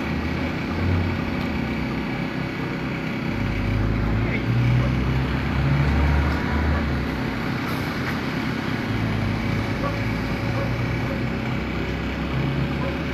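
A motor vehicle's engine running with a steady low hum that swells a few seconds in and again near the end, amid road traffic noise.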